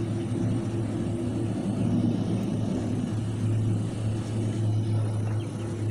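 A distant airliner taking off: a steady low rumble that holds level throughout.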